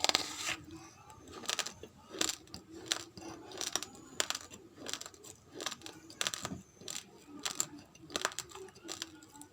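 Raw rice grains crunching between the teeth in close-miked chewing: a steady run of hard, sharp cracks, about one and a half a second.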